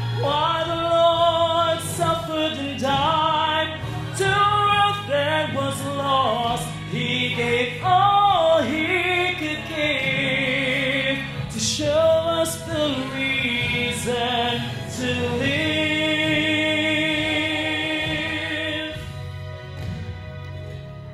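A man singing a slow worship ballad into a handheld microphone over instrumental accompaniment. He ends on a long held note with vibrato, and the music then fades out near the end.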